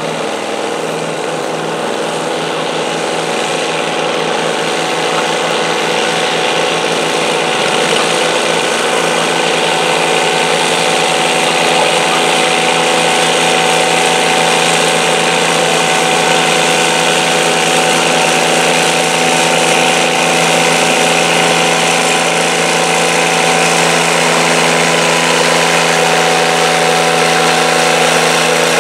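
Diesel engine of a modified John Deere garden pulling tractor running steadily under load as it drags a stoneboat sled, holding an even pitch and growing gradually louder.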